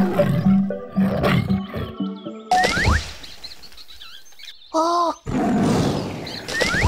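Tiger roaring sound effects over children's cartoon music. About five seconds in there is a short squeak whose pitch bends, and near the end a quick rising whoosh.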